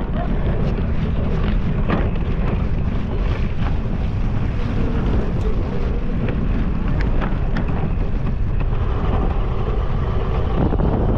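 Steady wind noise on the microphone, with many small knocks and rattles scattered through it.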